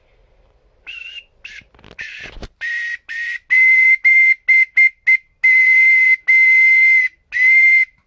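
Clay bird whistle blown in a series of toots at one high, steady pitch with a breathy hiss: the first few a little higher and shorter, then quick short toots and several longer held notes about a second each. A low thump about two and a half seconds in.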